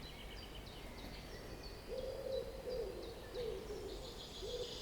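A bird's low hooting calls, several in a row from about two seconds in, each dropping in pitch at the end, with small birds chirping faintly and high-pitched throughout.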